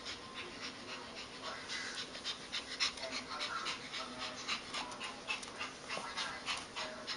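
Puppy panting rapidly, in quick short breaths of about four a second.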